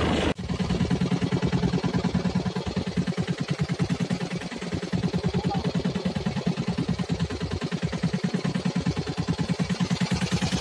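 Fishing boat's engine idling with a steady, rapid thumping of about eight or nine beats a second.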